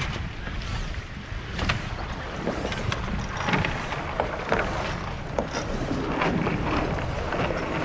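Wind buffeting the microphone and water rushing along the hull of an Impulse 26 sailboat under sail, with scattered knocks and clicks from the boat.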